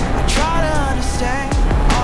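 Background music with heavy bass, sharp drum hits and a gliding pitched lead line.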